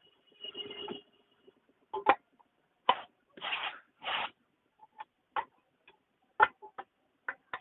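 Steel tyre lever knocking and scraping against a wheel rim while prying the old tyre's bead off: a series of sharp irregular clinks and knocks, with two short scraping rubs in the middle.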